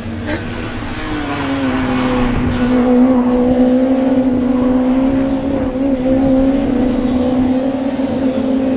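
Touring race car engine running at high revs. The note rises slightly and gets louder about a second and a half in, then holds steady.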